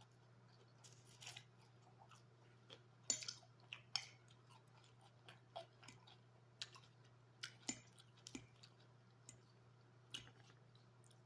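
Quiet close-up chewing of crunchy salad: irregular wet mouth clicks and crunches, the loudest about three and four seconds in, over a faint steady low hum.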